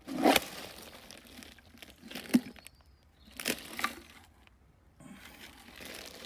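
An old box dug out of the ground being handled and pulled at, with dirt and debris crunching and crackling: a handful of short, sharp crunches, the loudest right at the start.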